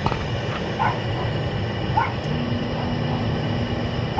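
Gas furnace firing with its inducer motor running, a steady rushing noise with a low hum; it is burning cleanly now that the correct inducer plate is fitted. Three short high-pitched chirps come through it about a second apart.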